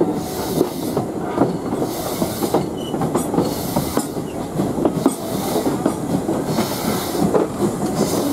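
LMS Ivatt 2-6-2 tank engine 41312 hauling its train, heard from close behind the locomotive: wheels clattering and knocking over the rails, with a hiss that swells and fades about once a second.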